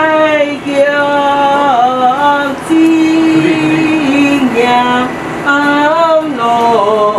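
A voice singing a slow melody in long held notes that slide in pitch as they change.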